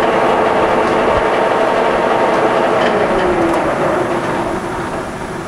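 Blanchard 18-36 rotary surface grinder running with its magnetic chuck turning at 18 RPM through the table transmission gearbox and the grinding wheel spindle still spinning: a steady mechanical drone with several steady whining tones, easing off a little near the end.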